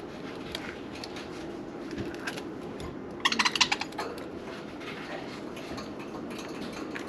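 Budgerigars chirping and chattering softly. About three seconds in comes a loud, rapid burst of sharp chirps lasting under a second.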